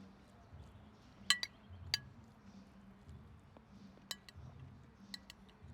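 Cutlery clinking against a dish during a meal: a handful of short, sharp clinks, the loudest about a second in.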